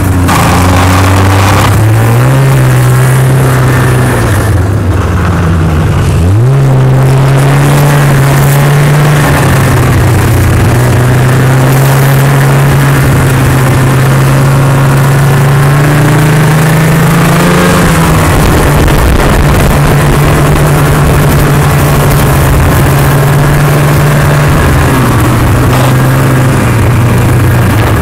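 Small snowmobile engine running steadily. Its pitch rises sharply about six seconds in and then holds, with smaller shifts in pitch later.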